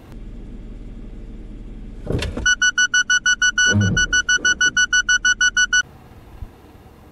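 Suzuki Swift's obstacle warning buzzer beeping rapidly, about six beeps a second for some three seconds, then cutting off: the alarm of the car's pedal-misapplication acceleration suppression, warning of an obstacle ahead. Before it, a low steady engine hum and a brief rush of engine noise.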